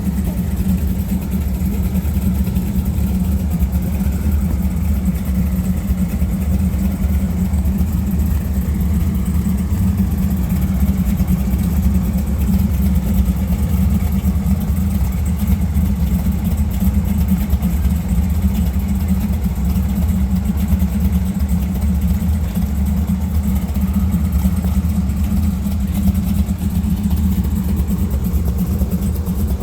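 A vehicle engine running steadily, a low, even rumble that does not rise or fall.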